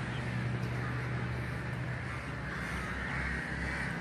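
Crows cawing, clearest in the second half, over a steady low hum.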